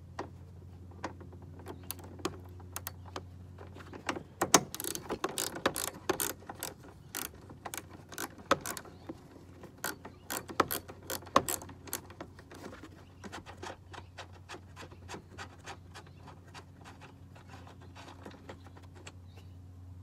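Irregular metallic clicks and clatter of hand tools and hardware as battery cable connections are worked loose, busiest in the middle of the stretch and thinning out later, over a steady low hum.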